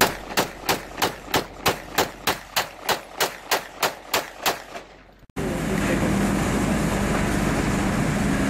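GrandPower K105 pistol fired in a steady string of about fifteen shots, roughly three a second, that stops about four and a half seconds in. Then the sound cuts suddenly to steady noise with a low hum.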